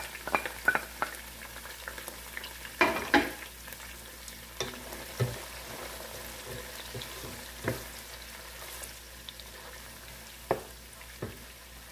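Onions and salted fish sizzling in hot oil in a large pot, while a wooden spoon stirs them and knocks against the pot now and then, the loudest clatter about three seconds in.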